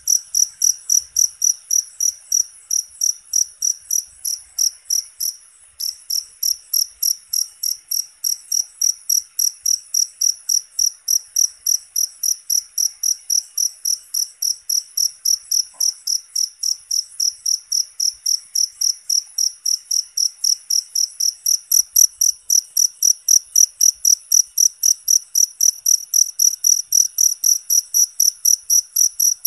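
A cricket chirping in an even, unbroken rhythm of short, high-pitched chirps, about three a second, with one brief break about six seconds in.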